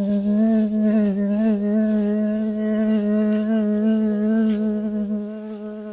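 A woman's voice holding one long, steady buzzing "zzz" at a low, even pitch, imitating a bee on a single slow exhale (bee breath). It fades slightly toward the end.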